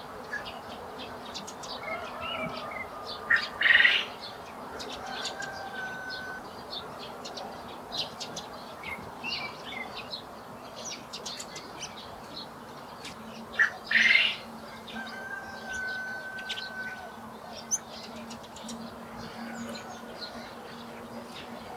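Garden birds chirping and calling, with many short high chirps and whistled notes. Twice, about ten seconds apart, a louder harsh note comes, each followed by a clear held whistle.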